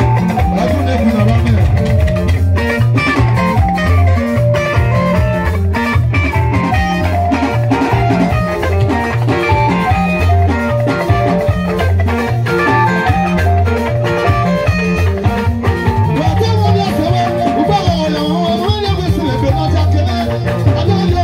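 Live band playing: electric guitars picking melodic lines over a repeating bass line and a drum kit.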